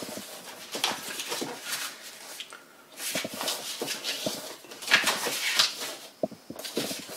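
Origami paper being folded and creased by hand: irregular crackling and rustling of the paper sheet, loudest about five seconds in.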